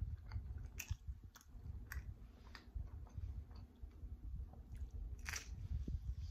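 Close-miked chewing of homemade spinach and jerk chicken pizza, with small wet mouth clicks. There is one louder crunchy bite into the slice about five seconds in.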